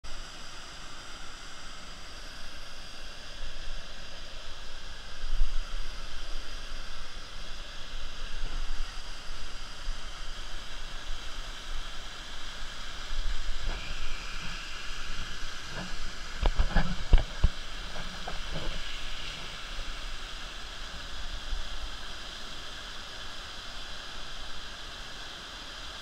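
Waterfall pouring into a rock pool, a steady rush of falling water. A few low thumps and knocks come about two-thirds of the way through.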